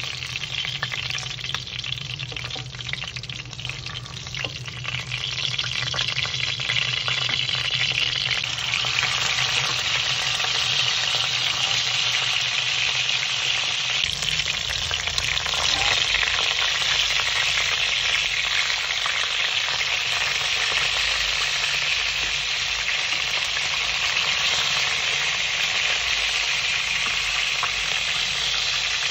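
Chicken drumsticks frying in hot fat in a stainless-steel pan: a steady sizzle that swells over the first several seconds and then holds. Metal tongs click against the pan in the first few seconds.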